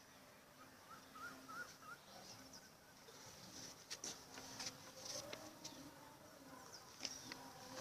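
Faint birds chirping and warbling in the background, with a few light clicks.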